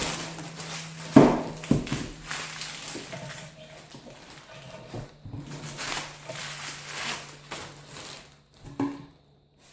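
Clunks and rustling as the drill stand's parts are unpacked and handled, with two sharp knocks about a second in. A steady low hum runs underneath.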